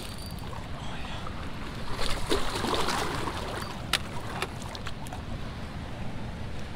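Shallow, fast-flowing river water rushing, with wind on the microphone. About two seconds in there is a louder burst of splashing lasting about a second as a hooked walleye thrashes in the shallows, and a sharp click or two follow near four seconds in.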